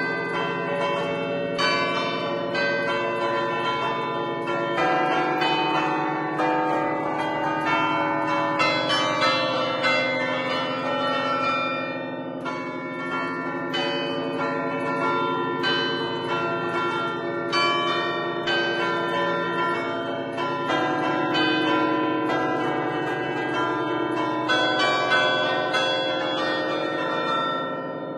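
A ten-bell church bell set in A, cast by Barigozzi in 1950, chimed by hand from a keyboard in the belfry in a lively traditional allegrezza tune. Different bells are struck in quick succession, their tones ringing on and overlapping.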